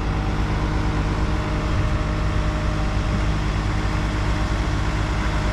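Engine of a large self-propelled pumpkin harvester running steadily, an even low hum that does not change.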